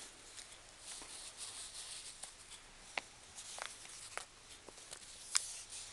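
Leather Sperry Top-Sider boat shoes rubbing and scuffing as a foot works in them, with scattered soft taps and a sharper click about five seconds in.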